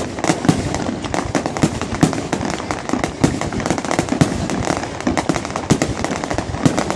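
Fireworks going off in a dense, continuous string of sharp bangs and crackles, several a second, with deeper thuds mixed in.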